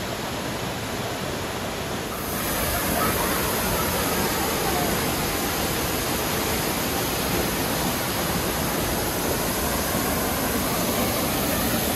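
Waterfall rushing steadily, a constant wash of falling water that grows louder about two seconds in.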